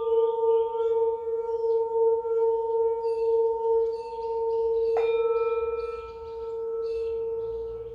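Singing bowls ringing with a steady, pulsing hum. About five seconds in, a bowl is struck and a brighter ring joins the sustained tone.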